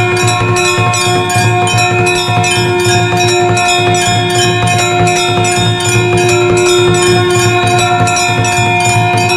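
Temple bells rung rapidly and without pause, several strikes a second, their tones overlapping into a continuous steady ringing.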